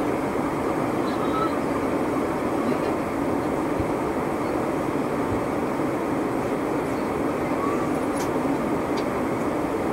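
Steady cabin noise of a Boeing 777 airliner in flight: the even rush of engines and airflow heard from a seat in the cabin.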